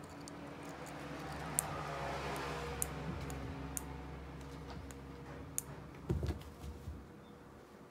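A cat playing with an LED light spot on a woven carpet, with the light toy handled alongside: a few small sharp clicks spread out, and a soft low thump about six seconds in as the cat pounces, over a low steady hum.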